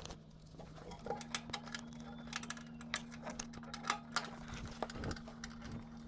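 Irregular light metallic clicks and taps from gloved hands working inside a gas furnace's burner compartment, reinstalling the flame sensor and reconnecting its wire. A faint steady hum sits beneath from about a second in.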